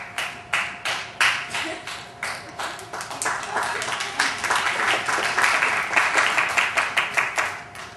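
Audience applauding: a few separate claps at first, building into full applause that stops just before the end.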